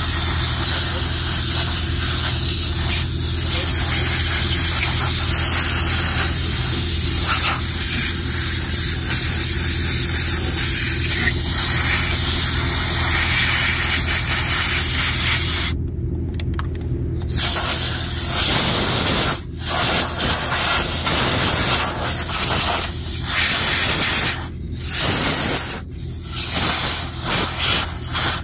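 Pressure washer wand spraying water over an engine, a loud steady hiss. In the last third the spray stops and restarts several times in short gaps. A steady low hum runs underneath.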